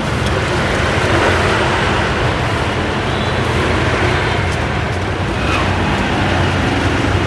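Steady street traffic noise: passing vehicle engines with a constant low rumble.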